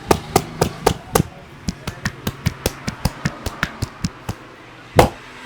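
A street barber's hands striking rapidly in a percussive massage, about four to five blows a second, with one louder blow near the end.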